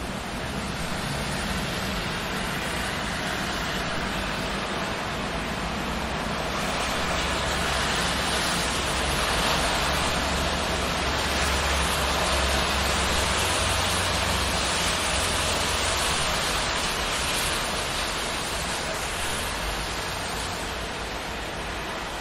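Steady rain on a city street, with a car passing on the wet road: its tyre hiss and low engine rumble swell over several seconds and fade again.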